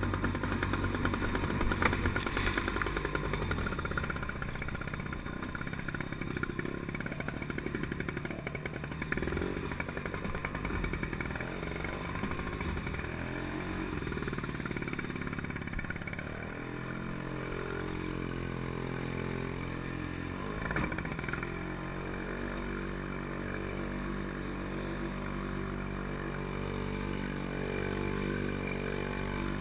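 The Villiers 9E single-cylinder two-stroke engine of a Pengor Penguin amphibious ATV running. Its speed wavers during the first half, then holds steady. There is one short knock about two-thirds of the way through.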